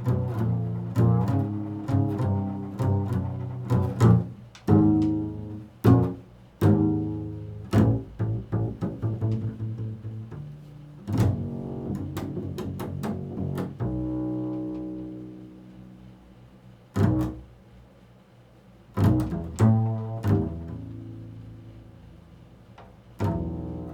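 Solo double bass played pizzicato: a quick run of plucked low notes over the first ten seconds or so, then a longer note left to fade, and a few sparser plucked notes near the end.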